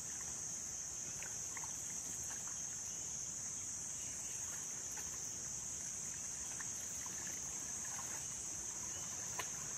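Steady, high-pitched insect chorus, with a few faint scattered clicks.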